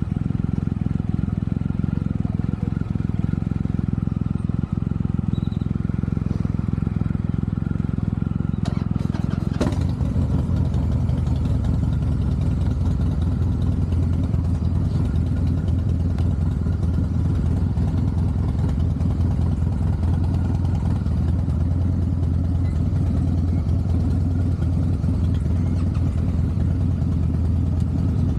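Harley-Davidson Softail Heritage Classic's V-twin engine and exhaust running steadily. About ten seconds in there is a sharp click, and after it the exhaust settles into a deeper, steadier note.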